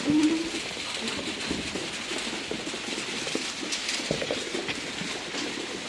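Sheep moving about in their shed: a patter of hoof steps and small knocks, with a short low call right at the start.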